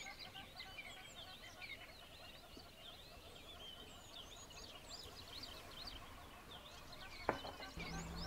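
Faint background chatter of many small birds chirping continuously, a dense mix of quick high chirps. A single sharp click sounds about seven seconds in.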